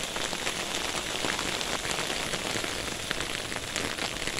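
Small hailstones and rain falling on concrete pavement: a steady hiss with many scattered sharp ticks from individual stones striking the ground.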